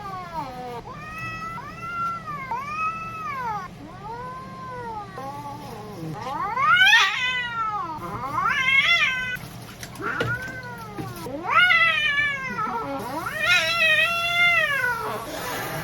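Brown tabby cat meowing and yowling over and over, about a dozen long calls that rise and fall in pitch, some short and some drawn out: complaining while being shampooed.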